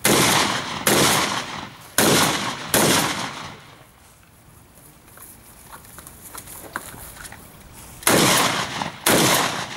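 Gunshots from a shoulder-fired long gun, each ringing out briefly. Four shots come about a second apart at the start, then there is a pause of about five seconds, and two more shots come near the end.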